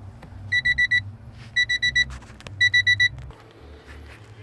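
An electronic beeper sounds in quick groups of about four short, high beeps, one group roughly every second, and stops about three seconds in.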